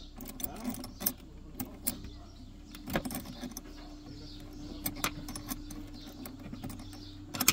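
Open-end spanner clicking and clinking against the adjusting nut on a Maxus T60's handbrake cable equaliser rod as it is turned in short strokes to tighten the parking brake cable. The sharp metal clicks come irregularly, the loudest about three seconds in and just before the end.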